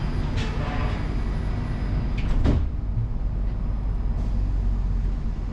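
Steady low hum inside a stopped Incheon Airport maglev car, with a sharp clunk of the sliding doors shutting about two and a half seconds in.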